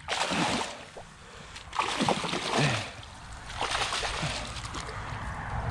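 A carp thrashing in a landing net at the water's surface, splashing in three bursts.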